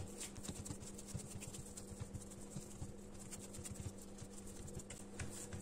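Hands pressing and patting soft cookie dough flat on a countertop: faint, irregular soft taps and rubs over a steady low hum.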